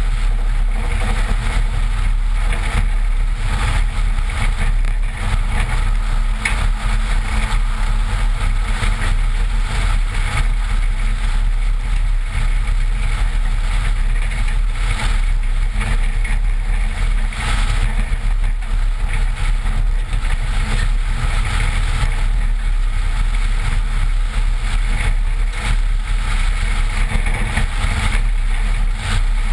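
Toyota's 22R four-cylinder engine running steadily under way, with tyre and road noise, as the truck drives fast along a dirt track. Heard from a camera mounted on the outside of the body by the front wheel.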